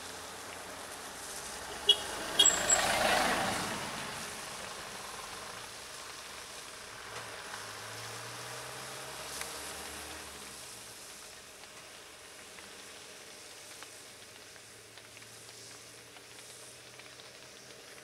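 Road vehicles driving slowly past on wet tarmac. A sharp click and a couple of brief high squeaks come about two seconds in, and one vehicle passes close just after, loudest about three seconds in. A low steady engine hum follows as traffic moves on.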